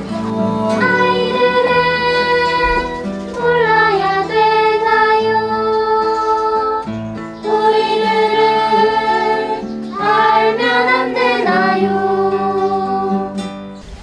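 Children singing a song together, rehearsing it, in long held notes with instrumental accompaniment; the phrases break roughly every three to four seconds and the music fades near the end.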